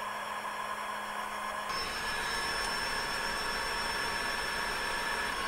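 Electric heat gun running: a steady rush of blown air with a faint fan whine. The tone shifts and fills out a little about two seconds in.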